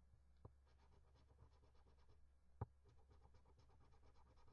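Faint, rapid scratching as the coating is rubbed off a scratch-off lottery ticket, with two sharper clicks about half a second and two and a half seconds in.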